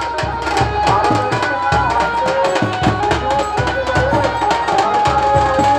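Procession music: fast hand-drum beats under a wavering, sustained melody line.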